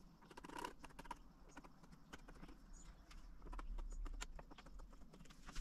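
Faint scattered light clicks and taps from small tools and a wooden workpiece being handled on a workbench, with a slightly louder soft stretch a little past halfway.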